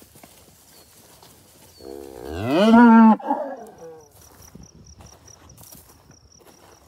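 A Red Angus cow moos once, about two seconds in: a loud call that rises in pitch and then holds for about a second before cutting off abruptly. Faint high-pitched pulsing chirps follow.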